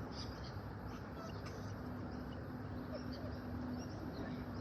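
Small birds chirping repeatedly in short high calls over a steady low background hum and rumble.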